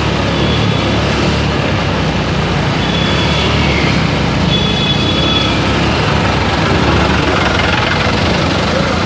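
Steady street noise of vehicle engines running, with a low rumble and a few brief high-pitched tones.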